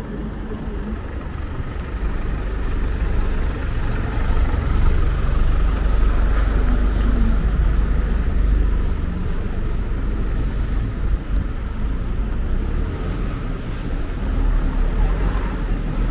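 City street traffic: a steady wash of passing cars and other vehicles with a heavy low rumble, swelling over the first few seconds.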